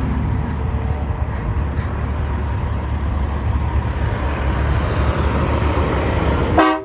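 Steady rumble of road traffic, with a short horn blast near the end that cuts off abruptly.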